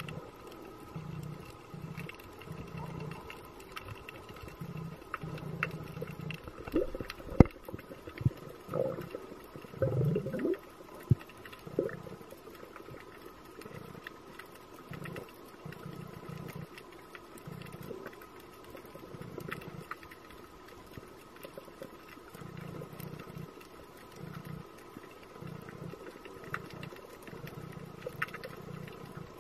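Underwater ambience picked up by a diving camera: a faint steady hum with low rumbles coming and going, and a short spell of knocks and a gurgling sweep about a third of the way in.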